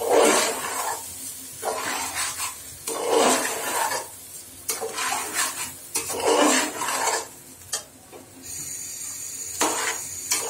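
Metal spoon stirring and scraping raw polao rice around a stainless steel saucepan in repeated strokes roughly a second apart, as the rice is lightly fried with whole spices before the water goes in.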